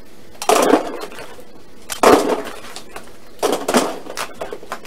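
Handfuls of hollow plastic Easter eggs clattering into a cardboard box: three rattling drops about a second and a half apart, then a few lighter clicks near the end.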